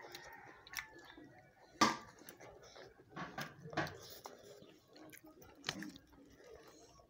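People eating rice and chicken curry with their hands: chewing and wet mouth smacks, with a few sharp clicks, the loudest about two seconds in and a cluster a second or so later.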